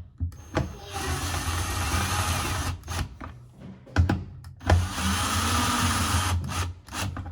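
Power drill running in two spells of about two seconds each, with short knocks between them, driving in the bolts that hold a shifter mounting plate.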